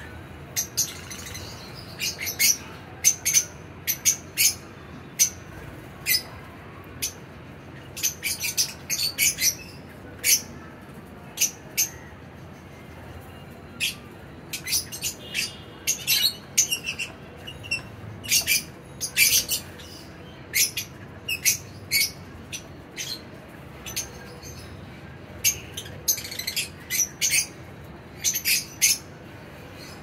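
A flock of lovebirds calling with short, shrill chirps, coming in irregular clusters with a few brief quieter gaps.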